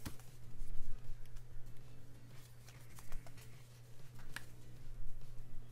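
Paper stickers being handled and peeled from a sticker sheet: soft rustles, light taps and small clicks of paper on the desk, with a couple of dull bumps about a second in, over a steady low hum.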